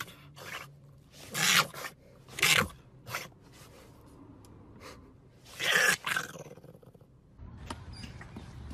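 French bulldog puppy giving a series of short, rough, raspy vocal bursts with no clear pitch, three of them loud. Near the end they give way to a steady low background hum.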